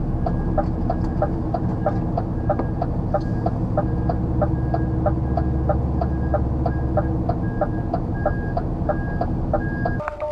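A lorry's diesel engine runs with a low rumble that swells in the middle, under a rapid, evenly repeating chirp at about three a second. The chirping and the engine sound both stop near the end.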